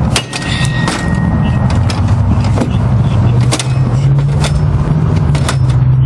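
An engine running steadily, its pitch stepping up slightly about four seconds in, with sharp clicks and clinks every second or so over it.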